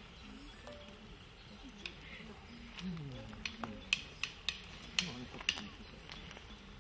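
Light sharp slaps and taps, about eight in two seconds around the middle, of hands and forearms meeting as pairs work a karate kakie (sticky-hands) hooking drill, over a faint murmur of voices.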